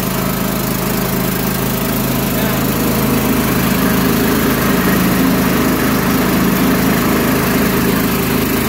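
Small gas engine of a key-started portable air compressor running steadily with the choke pushed back in, a loud even hum.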